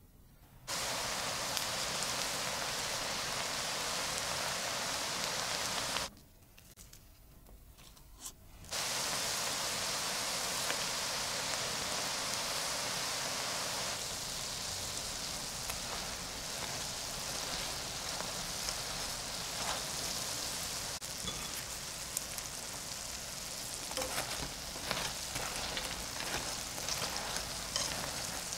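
Batter balls deep-frying in hot vegetable oil in a pan, a steady sizzle. It drops out for a couple of seconds about six seconds in, then returns, and later turns more crackly with scattered pops as the balls cook.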